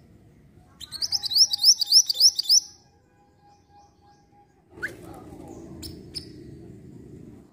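Minivet (mantenan) calling: a fast, loud trill of about nine sharp chirps lasting about two seconds, then it stops. Later a low background rumble comes in, with a few faint chirps.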